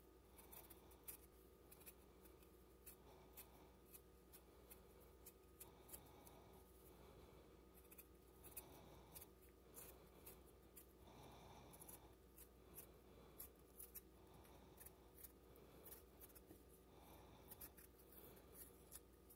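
Faint, irregular scraping strokes of a small blade peeling the skin off a raw potato, about one or two cuts a second.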